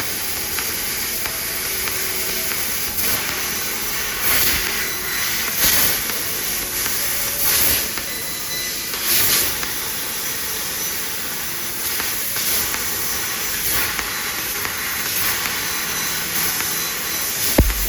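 3000 W laser cutting machine cutting sheet metal: a steady hiss of the cutting head and its assist gas, with louder bursts of hiss every one to two seconds.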